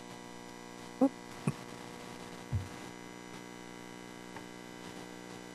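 Steady electrical mains hum from the meeting-room sound system, with three brief sounds about a second in, at one and a half seconds and at two and a half seconds.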